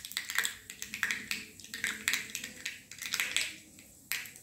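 Mustard seeds popping and spluttering in hot oil in a steel kadai: irregular sharp pops, several a second, thinning out near the end. This spluttering is the cue in tempering that the seeds are done and the chillies, ginger and curry leaves can go in.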